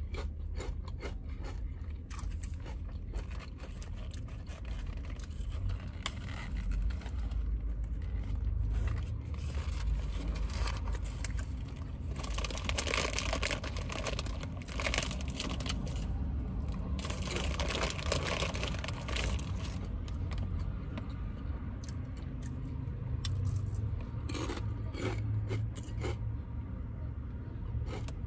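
Close-miked chewing and crunching of a grilled chicken sub, with wet mouth clicks and bursts of crackling, over a steady low rumble inside a car.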